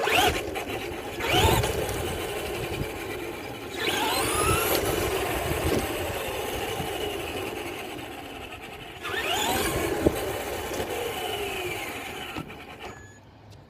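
RC car motor whining as the car drives off, surging three times with the pitch climbing on each acceleration and sliding down as it eases off, then dying away near the end.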